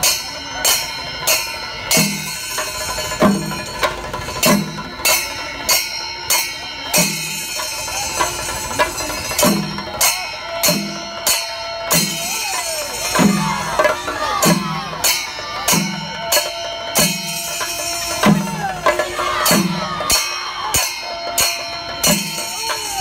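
Chenda melam: a group of chenda drums struck with sticks, beating a steady slow rhythm of heavy strokes about once or twice a second, with brass ilathalam hand cymbals clashing along.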